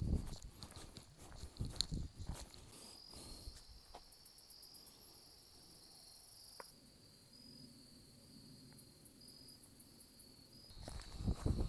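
Crickets or similar insects trilling steadily in a high, pulsing tone. Footsteps on the trail sound for the first couple of seconds, stop while the insects carry on alone, and start again near the end.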